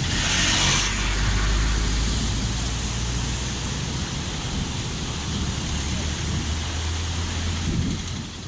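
Floodwater rushing steadily across a washed-out road, a river flowing out of its course, with wind buffeting the microphone; the rush is louder for about the first second.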